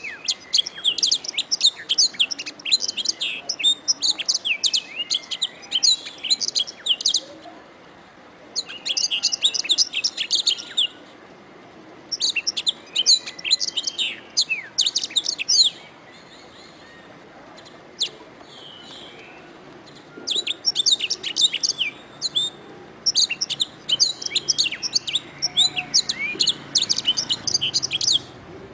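Domestic canary singing: long phrases of rapid trills and chirps, each a few seconds long, broken by short pauses, with a single note alone in one of the gaps.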